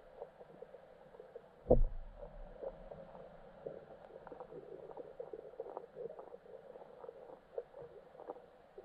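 Muffled underwater sound heard through a camera's waterproof housing on a lakebed: a steady hum with scattered faint clicks and ticks, and one deep thump just under two seconds in.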